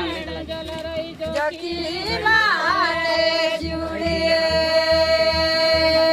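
Pahari folk song sung by one voice, with wavering, ornamented phrases and then one long held note from a little past halfway. A low, regular pulsing runs beneath it.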